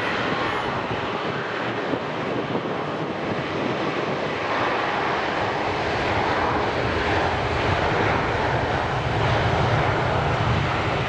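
Jet airliner's engines running as the aircraft passes, the noise growing slowly louder with a deepening rumble and a whine that falls in pitch midway.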